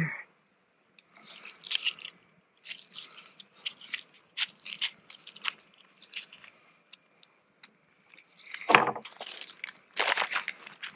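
Knife slicing an onion on a plastic cutting board: an irregular run of crisp crunches and taps, the loudest a little before the end. A plastic bag crinkles near the end, over a steady high insect drone.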